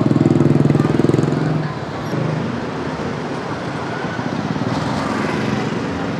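A motorcycle engine running close by, dropping away a little under two seconds in. Steady street traffic noise with other motorbike engines follows.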